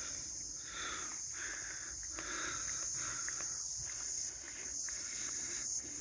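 Insect chorus: a steady, high-pitched drone that never lets up, over a low rumble.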